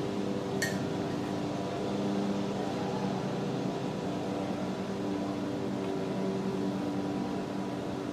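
A steady low mechanical hum with a few even pitches, with one short click about half a second in.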